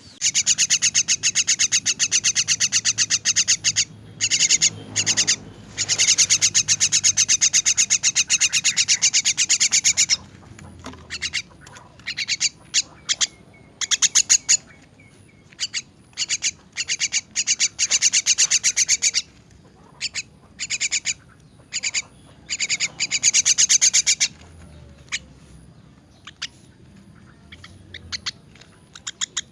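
Young common myna begging calls: very rapid, harsh rasping notes in long runs, breaking into shorter bursts after about ten seconds and stopping about 24 seconds in.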